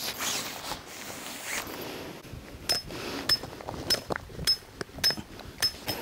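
Fabric of a camping windscreen rustling as it is unfolded, then a hammer driving a tent peg into gravel: about six sharp strikes with a short metallic ring, a little over half a second apart.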